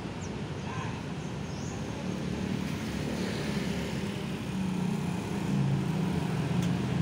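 Road traffic going by on the street, with the engine hum of a passing vehicle growing louder about halfway through.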